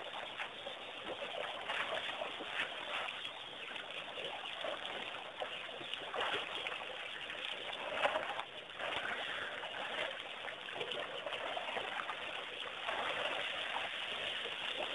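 Elephants splashing and wallowing in the mud and shallow water of a waterhole, with steady trickling water.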